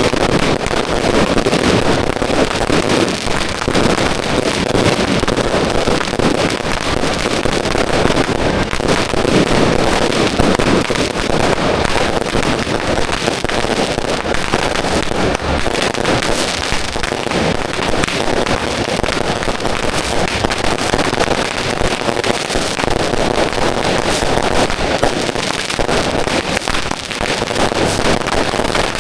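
Firecrackers going off in a dense, continuous barrage, the pops coming so fast they merge into one unbroken crackle, with no pause and no single standout bang.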